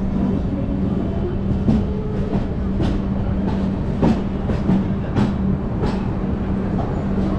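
Indian Railways express passenger coach rolling through a station, heard from its open doorway: a steady rumble and low hum, with about six sharp, unevenly spaced clicks of the wheels over rail joints and points.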